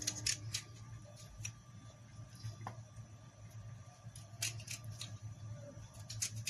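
Knife cutting into beldi lemons, scoring each into quarters for salt-preserving: a few clusters of short crisp cutting sounds near the start, past the middle and near the end. A steady low hum runs underneath.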